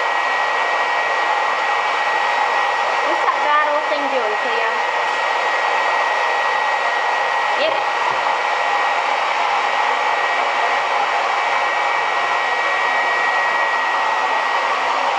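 Loud, steady rushing noise of an appliance's motor and fan, with a thin high whine held throughout. A short wavering pitched sound rises and falls about four seconds in.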